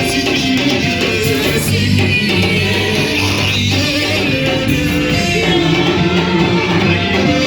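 Live worship band music with singing, playing steadily.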